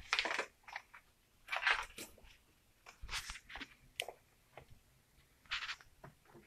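Short rustles and scrapes of objects being handled right at the phone's microphone, about five bursts with a sharp click about four seconds in.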